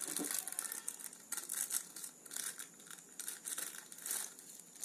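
Butter paper crinkling and rustling in short, irregular bursts as it is handled and pulled up out of a mug.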